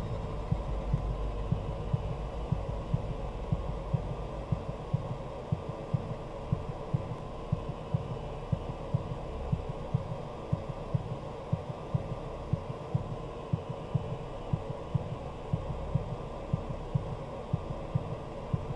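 A steady low hum with a soft, low thudding pulse like a heartbeat, about two beats a second, growing more distinct after a few seconds.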